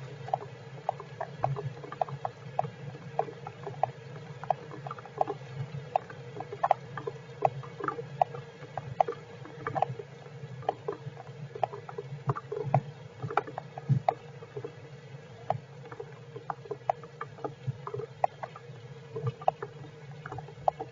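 Rain falling on the shelter as irregular sharp ticks of drops, several each second, over a steady low electrical hum.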